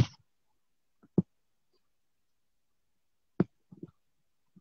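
A few short, sharp clicks, one about a second in and a cluster of two or three around three and a half seconds in, with near silence between them.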